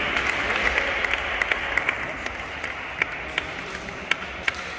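Spectators at a basketball game applauding, the clapping dying away over a few seconds, with a few single sharp claps standing out toward the end.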